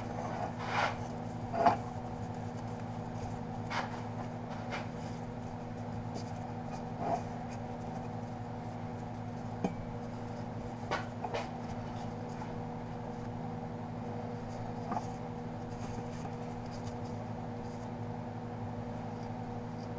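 Exhaust heat wrap rustling and scraping as gloved hands wind it tightly around motorcycle header pipes, with a few soft knocks against the pipes, the loudest a little under two seconds in. A steady low hum runs underneath.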